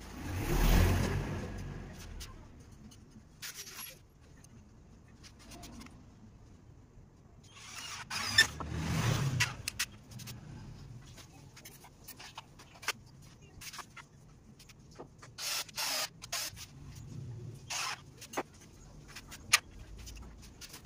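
Two vehicles passing by, each a low rumble that swells and fades over a couple of seconds: the first right at the start and loudest, the second about eight seconds in. In the second half come scattered sharp knocks and clicks of timber being handled on a tiled floor.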